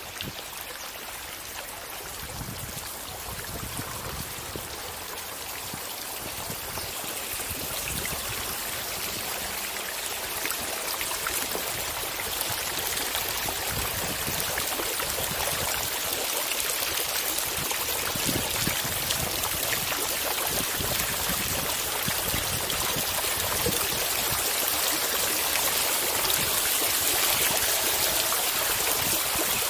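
Running, splashing water from a garden water feature, a steady rushing that grows gradually louder throughout.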